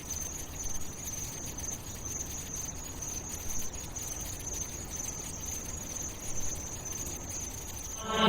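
A steady, high-pitched insect-like trill over a low rumbling hiss, an ambient intro layer of a song, with no beat yet.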